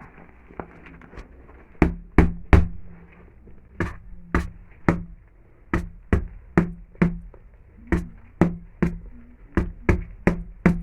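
Repeated knocking, in short groups of three to five knocks a few tenths of a second apart, each with a brief low ring. It starts about two seconds in.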